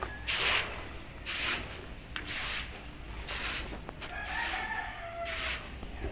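Footsteps scuffing on gritty concrete, about one a second, as someone walks across the floor slab. Partway through, a bird gives one drawn-out call in the background.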